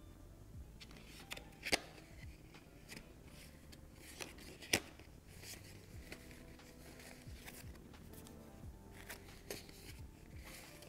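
Paper playing cards of a Monopoly Deal deck being slid apart and fanned by hand: soft flicks and rubbing with a couple of sharper card snaps in the first half. Quiet background music runs underneath.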